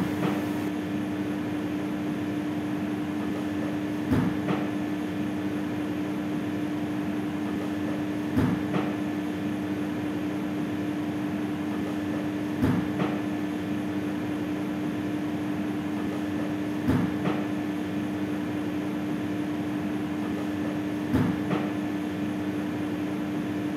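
A steady mechanical hum, with a short double knock repeating very evenly about every four seconds.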